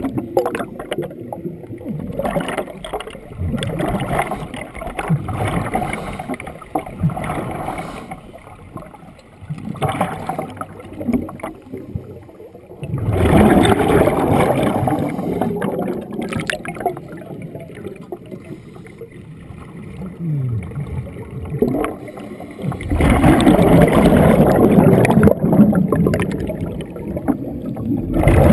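Underwater sound heard through a camera housing: muffled water movement and gurgling bubbles, with two loud stretches of bubbling from a diver's exhaled air, one about halfway through and one near the end.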